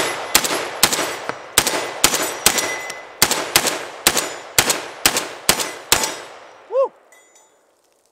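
Rock Island Armory VR80 gas-piston semi-automatic 12-gauge shotgun firing rapidly from a 19-round box magazine: about a dozen shots at roughly two a second, each with a short echoing tail. The string stops about six seconds in.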